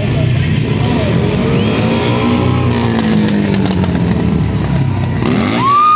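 Sportbike engine revving over a steady low rumble. Its pitch rises and falls about two seconds in, then near the end it climbs sharply to a high, held rev, the loudest moment.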